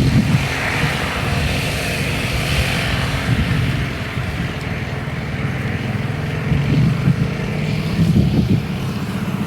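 Street traffic: car engines running with steady road noise, one engine rumbling a little louder about two-thirds of the way through.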